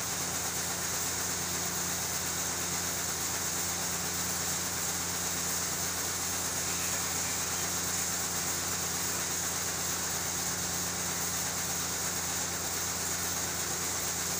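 Steady motor hum with a constant hiss, unchanging throughout.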